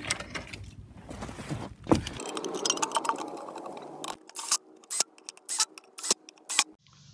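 BMW i3 inverter's metal housing being lifted off the electric motor: handling noise and knocks, then scraping and rattling of metal parts, then a quick run of sharp clicks and taps near the end.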